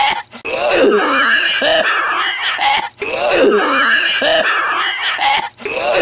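A man's loud, exaggerated smoker's cough: a voiced, hacking run of coughs that breaks off and starts over about every two and a half seconds, the same run repeating each time.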